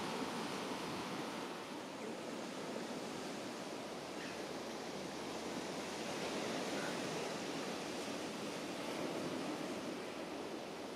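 Sea waves washing steadily on the shore.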